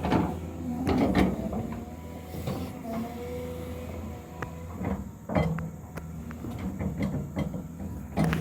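Heavy earthmoving machine's diesel engine running steadily, with repeated metallic clanks and knocks from its working parts, the ground being levelled with fill.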